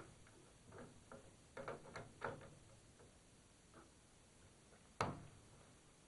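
Faint scattered clicks and knocks of tools being handled at a metal lathe, with one sharper knock about five seconds in.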